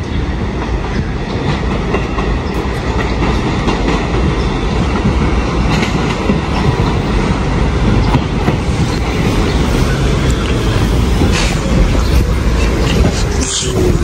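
New York City subway trains, an R46 and an R68-series car set, rolling into the station with a steady rumble and clatter of wheels on rail that grows louder as they draw near. A short falling squeal comes near the end as they brake.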